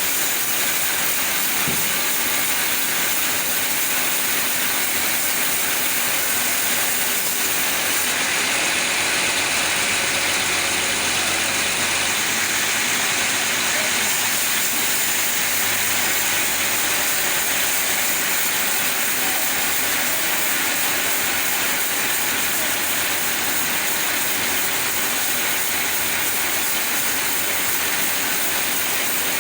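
Chainsaw running steadily under load, ripping lengthwise along the grain of a sapodilla log.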